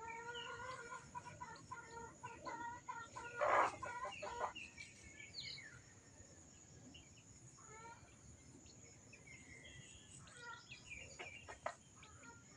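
Native chickens clucking in short repeated calls, with a few high falling peeps like young chicks; one louder cluck about three and a half seconds in.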